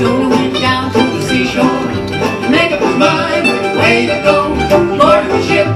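Acoustic string band playing an instrumental passage of a bluegrass-style gospel song, with picked banjo and guitar.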